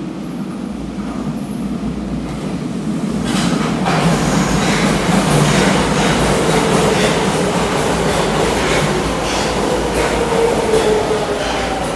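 5050 series subway train pulling into an underground station: its rumble grows louder from about three seconds in, with wheels clicking over the rail joints, and a falling whine near the end as it slows to stop.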